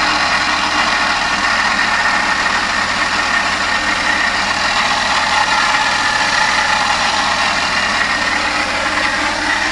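Suzuki Every DA64W's K6A three-cylinder engine idling with a steady, fairly loud scraping noise from the engine, which the owner suspects is a bearing or the water pump.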